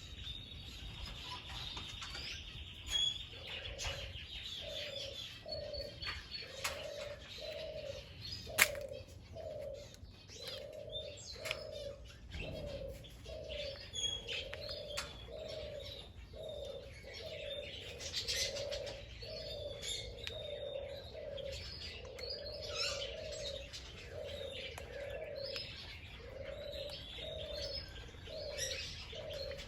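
Birds calling: a steady series of low cooing notes, about one a second, under many short high chirps and twitters.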